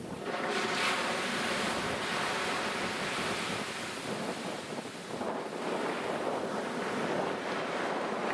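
Surf washing against shoreline rocks, with wind buffeting the microphone. The rush of noise swells sharply right at the start and stays loud throughout.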